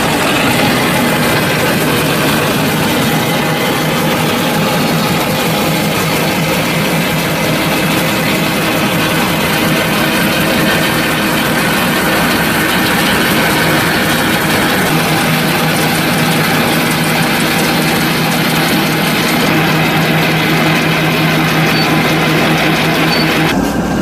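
Tractor engine running steadily while a Schuitemaker Siwa 720 forage wagon unloads chopped maize from its rear, its floor conveyor and discharge rollers churning the silage out. The sound changes abruptly near the end.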